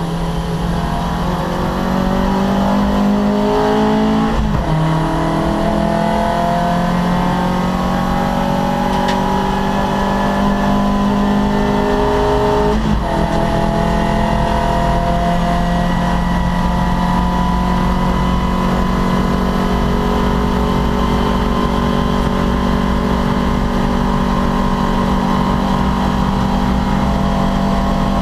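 Opel Kadett C race car's engine accelerating hard through the gears: the revs climb, drop at an upshift about four and a half seconds in, climb again to a second upshift around thirteen seconds in, then hold steady at high revs.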